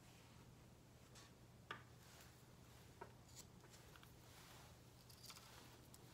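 Near silence with a faint steady low hum and a few soft, short taps and clicks as small red sticks are set down on a flat surface.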